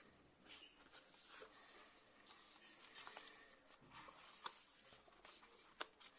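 Faint scraping and rustling of cardboard packaging being handled and unfolded, with a few light clicks, the sharpest about four and a half seconds in and again near the end.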